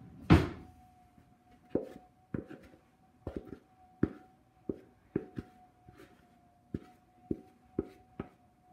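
A utensil knocking against a plastic mixing bowl while mixing, in an irregular series of short knocks about one to two a second. One louder thump comes about a third of a second in.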